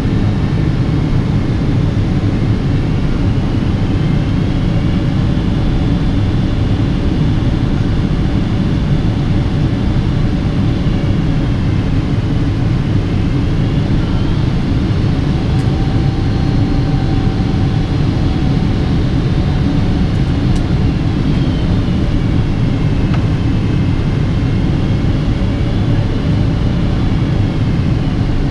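Cabin noise of a Boeing 777-200ER on descent, heard at a window seat beside its Pratt & Whitney PW4090 turbofan: a steady low rumble of engine and airflow. Over it a faint high whine slowly rises and falls a few times.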